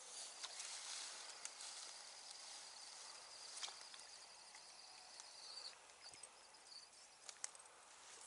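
Near silence: faint outdoor ambience, with a faint high-pitched trill for about five seconds and a few light clicks.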